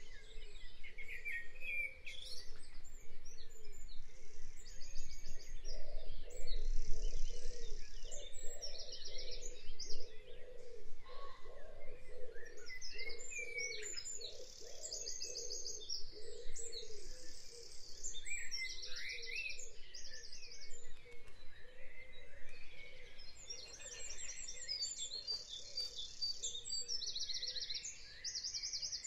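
Background birdsong: several birds singing, with short rapid trills repeating every few seconds and scattered chirps over a steady hum of ambient noise.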